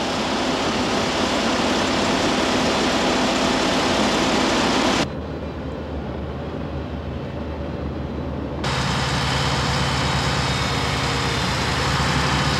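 Heavy diesel engines of self-propelled modular trailers running steadily. About five seconds in the sound drops and turns muffled, and about three and a half seconds later a lower engine comes in with a steady low throb.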